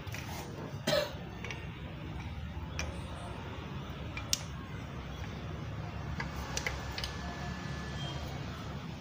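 A few light metallic clicks and taps as a ringed piston is fitted by hand into a cylinder bore of a Suzuki Ertiga gasoline engine block. The loudest click comes about a second in, a sharp one follows a few seconds later, then lighter ticks, all over a steady low hum.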